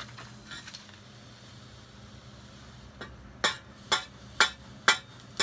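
Hammer striking a freshly cast bronze piece to knock its ceramic shell mold away: a light tap about three seconds in, then five sharp strikes about two a second.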